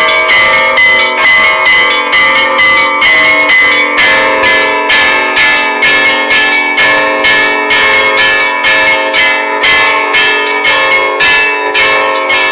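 Russian Orthodox church bells rung in a festive peal: rapid strikes of the small high bells, about three or four a second, over the sustained ringing of larger bells, the lower bells growing stronger about four seconds in.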